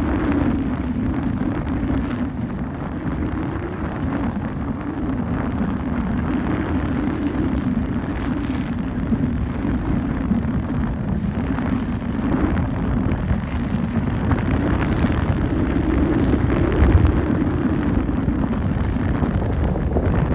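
Wind buffeting the microphone in a steady rumbling rush, over a steady low drone of a boat motor.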